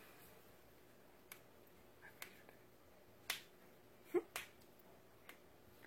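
Toe joints being cracked: about six short, sharp pops at uneven intervals, the loudest a little after four seconds in.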